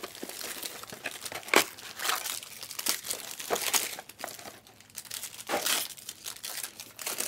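Trading-card pack wrappers and box packaging being crinkled and torn open, with irregular crackles and a few sharper snaps, easing off for a moment about two-thirds of the way through.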